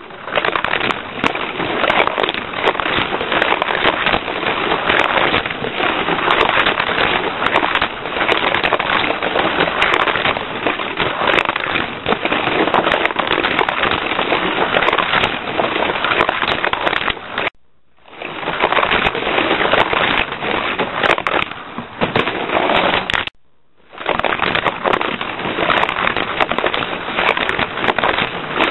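Small rechargeable Cars 2 Charge Ups toy car running laps on a plastic Fat Track, a loud continuous rattling clatter of its motor and wheels on the plastic. The sound drops out abruptly twice for about half a second.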